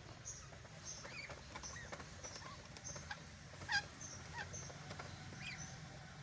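Duckling peeping: a run of short, high peeps repeated every fraction of a second, with one louder peep about midway.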